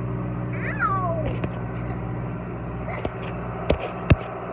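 John Deere tractor engine running steadily, heard from inside the cab. About half a second in, a child gives one high squeal that falls in pitch. Near the end come two sharp knocks, the second the loudest.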